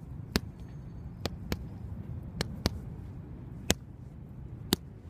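Boxing gloves striking focus mitts: seven sharp smacks, two of them in quick one-two pairs, over a steady low background rumble.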